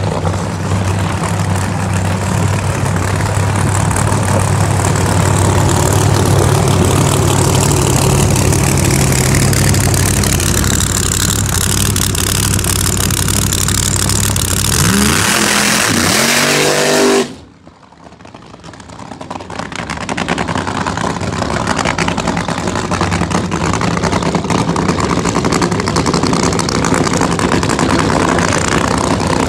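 Funny car engine running at idle with a steady low rumble, then revving up in pitch for a couple of seconds. The sound cuts off suddenly about 17 seconds in. A steady, noisy engine sound then builds back up over a few seconds and holds.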